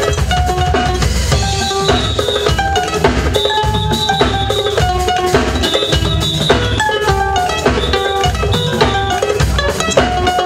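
Live West African griot band playing an instrumental passage: a drum kit keeps a steady beat under a repeating melody that steps up and down.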